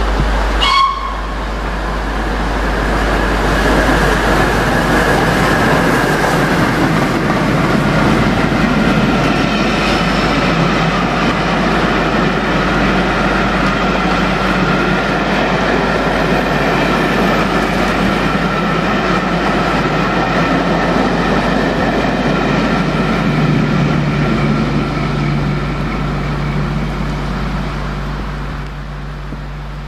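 Steam express passing at speed: LNER Peppercorn A1 Pacific 60163 Tornado and its long train of coaches rush through at about 75 mph, with a steady roar of wheels on rail that eases off near the end. A brief high tone sounds about a second in.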